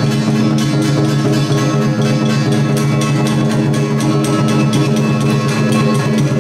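Music with plucked strings over steady held notes, with a quick, even pulse of short strokes.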